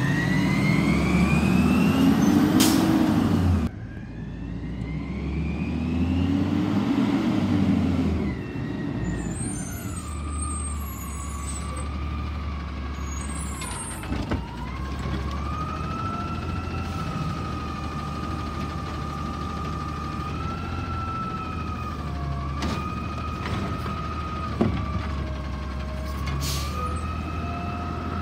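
Natural-gas Autocar Xpeditor garbage truck with a McNeilus Autoreach automated side-loader arm. The truck revs up twice with a rising whine in the first several seconds, then a steady high hydraulic whine runs while the arm works the cart. A few knocks and one sharp bang come in the later part.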